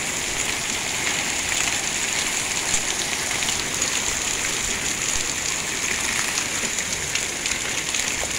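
Hailstorm: hailstones and rain pelting the patio and outdoor furniture in a steady, dense patter with many small sharp ticks of stones striking.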